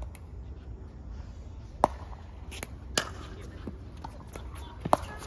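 Pickleball paddles striking a hard plastic ball in a rally: sharp, hollow pops, the loudest about two seconds in, another a second later, and a quick pair near the end, with fainter taps in between.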